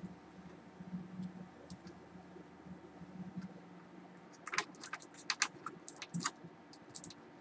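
Sharp plastic clicks and taps of multimeter test probes against a small wire connector from a UPS transformer, in a quick irregular run from about halfway through.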